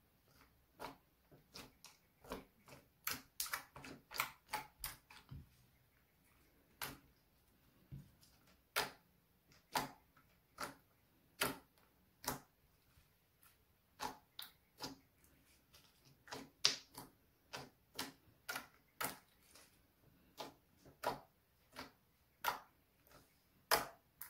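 Slime being kneaded and pressed by fingers, giving irregular sharp pops and clicks as air pockets squeeze out, about one or two a second, with a quick run of several together a few seconds in.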